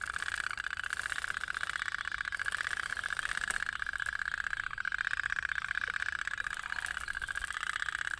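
Toy pop-pop (otok-otok) steam boats running, their heated tin diaphragms popping in a rapid, steady putter.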